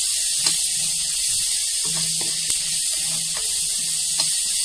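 Chopped onions sizzling in hot oil in a kadai with a steady hiss as they fry towards light brown, while a steel spoon stirring them scrapes and clicks against the pan several times.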